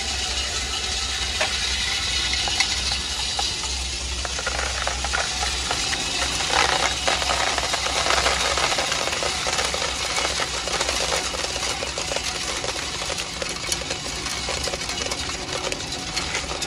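Industrial snail-tail cutting machine running, snails rattling and clattering inside it as their tails are cut off. A low motor hum underneath drops away about nine seconds in.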